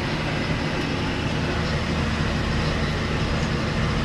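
Farm tractor engine running steadily while pulling a wheel hay rake, a low, even drone.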